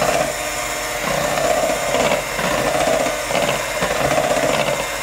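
KitchenAid electric hand mixer running, its beaters whisking thick red velvet cake batter in a stainless steel bowl. The sound swells and dips about once a second as the beaters move through the batter.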